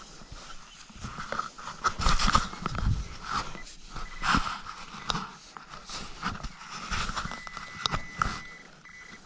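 A small hand digger scraping and scooping damp beach sand in irregular strokes. A steady metal-detector tone sounds for about a second near the end.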